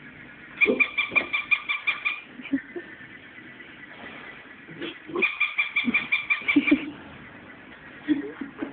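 A toy dog squeaking in two rapid runs of high, even-pitched pulses, about ten a second, each lasting about a second and a half. Soft knocks and scuffles come from the dogs playing with it.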